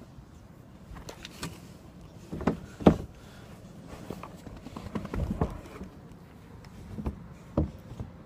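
Handling noise close to the microphone: irregular knocks, bumps and rustling as a phone is moved about. The loudest bump comes about three seconds in, with a cluster of smaller knocks around five seconds and another bump near the end.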